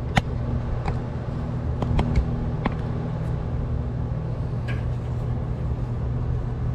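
Several sharp clicks and knocks of hands working the crankshaft position sensor's fittings in the engine bay, most of them in the first three seconds, over a steady low hum.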